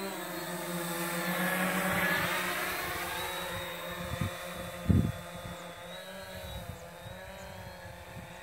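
Quanum Spider 700 multirotor drone flying past: the whine of its electric motors and propellers grows louder and bends in pitch as it passes closest about two seconds in, then fades as it moves away. A short low thump, the loudest moment, about five seconds in.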